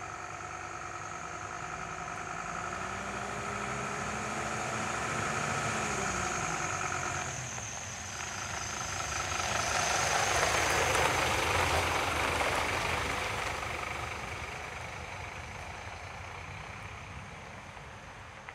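Scania P230 box truck driving past: the diesel engine grows louder as it approaches and is loudest about ten seconds in as the truck passes. It then fades steadily as the truck drives away.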